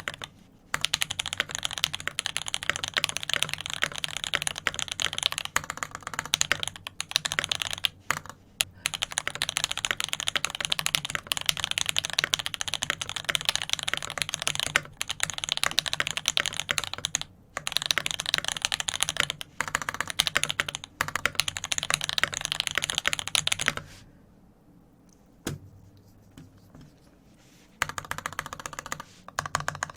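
Custom mechanical keyboard with tactile switches on a 1.5 mm brass plate being typed on quickly and steadily, a dense run of key clacks. Near the end the typing stops for about four seconds, with a single keystroke in the pause, then starts again.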